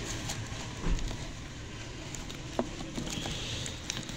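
Paper pages of a printed instruction booklet being handled and turned, with light rustling, a few small clicks and a brief dull bump about a second in.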